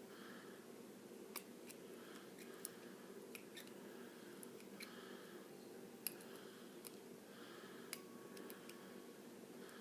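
Faint, irregular small metallic clicks, about a handful, from a hacksaw-blade tool being twisted and dragged against the locking wafer inside a motorcycle luggage lock cylinder, over a low steady room hum.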